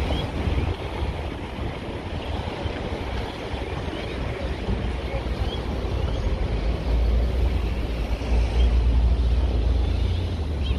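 Wind buffeting the microphone over the steady hum of city road traffic, the wind rumble growing stronger about seven seconds in. A few short high chirps sound now and then.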